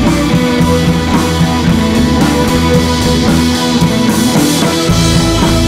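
Background music with a steady beat; the bass drops out for about a second and comes back near the end.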